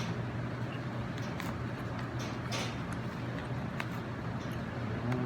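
Close-miked chewing of food, with scattered short mouth clicks and a brief crunch about two and a half seconds in, over a steady low hum.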